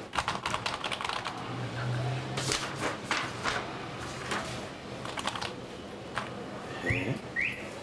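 Typing on a computer keyboard in several irregular bursts of key clicks. Near the end come three short rising squeaks.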